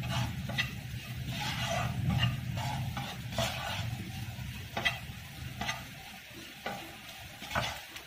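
Wooden spatula stirring and scraping carrots, peas and onion in a frying pan, with a light sizzle of the vegetables frying. Irregular scrapes come roughly once a second.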